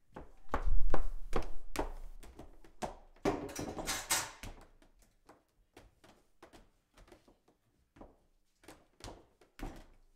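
Knocks and scuffs on wooden stairs, with cloth rubbing and swishing over a wet step about three to four seconds in. Near the end come a few high-heel steps on the wood.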